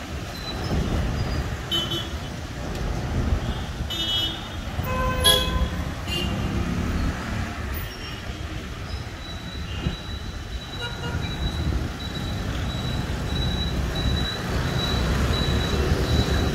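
Vehicle horns honking in traffic: several short toots in the first half, about two, four, five and six seconds in, over the steady rumble of engines. A thin, high, steady tone runs through the second half.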